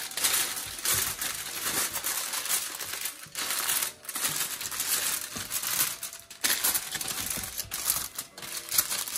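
Aluminium foil crinkling and crackling as hands press and crimp it around the rim of a metal baking pan, going on with a few brief breaks.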